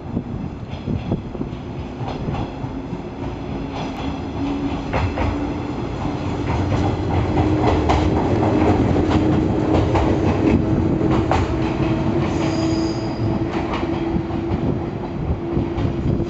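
107 series electric train pulling out and accelerating past, its motors giving a whine that slowly rises in pitch over repeated wheel clacks on rail joints and points. Loudest as the cars go by close about halfway through, with a brief high wheel squeal about three quarters of the way in.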